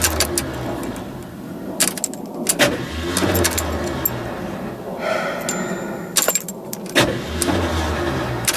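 Ford Ranchero's engine cranked by its starter in several short bursts of low rumble, separated by sharp clicks, without catching. Around the middle there is a brief whine.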